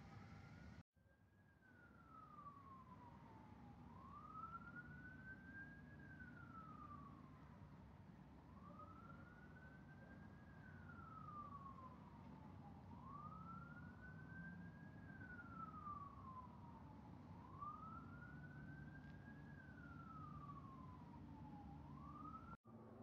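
Faint emergency-vehicle siren on a slow wail, rising quickly and then falling back about every four and a half seconds, over a low traffic rumble.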